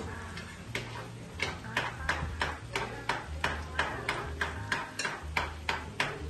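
A utensil beating eggs in a small blue enamel pot, clicking against the pot's sides in a steady rhythm of about three strokes a second.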